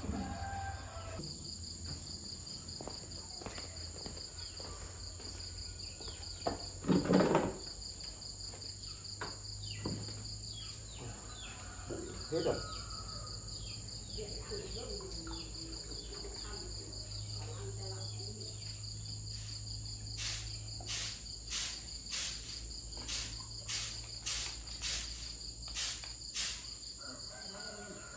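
Insects chirping steadily in high, pulsing trains over a low hum. There is a louder knock about seven seconds in, and near the end a run of short knocks about twice a second.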